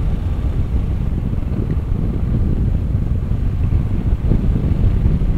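Steady wind noise buffeting the microphone on a moving Hero Xpulse 200 4V motorcycle, with the bike's single-cylinder engine running underneath.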